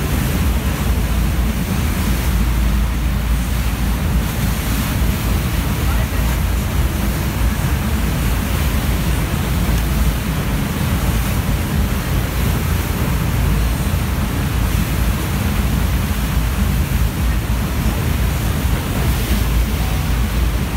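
Steady rush of water from the artificial standing wave of an indoor surf pool, heavy in the low end, with no breaks or single splashes standing out.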